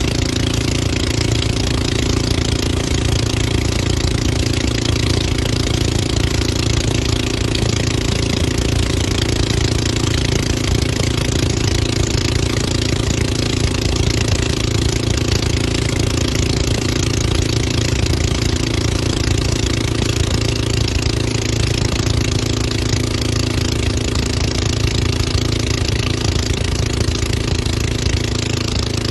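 Motor of the boat towing a banana boat, running steadily at speed, with a steady hiss over it.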